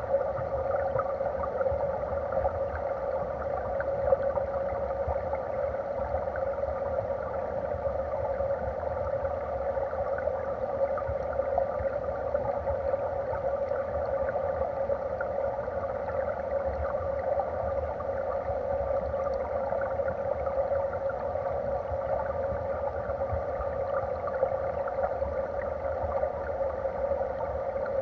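Stream current heard underwater: a steady, muffled rush and gurgle of flowing water against the submerged camera.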